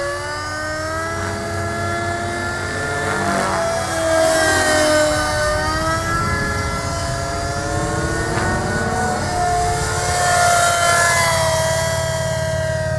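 Gaui NX4 radio-controlled helicopter in flight, its motor and rotor whine gliding up and down in pitch as it manoeuvres.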